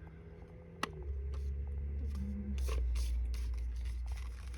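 Handling noise from a small plastic electric kettle being opened and turned over in the hands: scattered rustles and light clicks, with one sharp click about a second in, over a low rumble.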